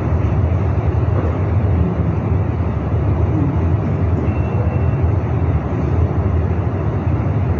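Steady low rumbling drone of ceiling fans and air-conditioning units running in a large prayer hall, with no voices over it.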